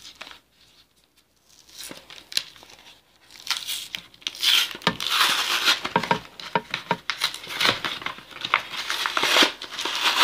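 A plastic-and-cardboard trading-card blister pack being torn and pried open by hand: crinkling and crackling packaging with sharp snaps. It starts faint and sparse, then grows louder and busier from about four seconds in, as the hard-to-open pack gives way.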